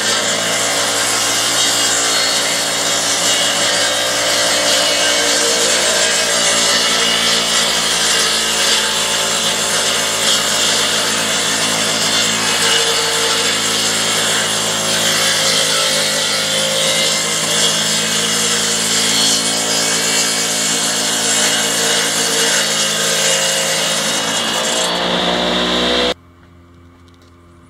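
A homemade rail-mounted sawmill cutting wood, its motor and blade running steadily through the cut. The sound stops abruptly near the end.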